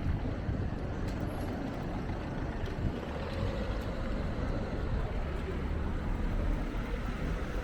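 City street traffic: a heavy road vehicle's engine running with a steady low rumble.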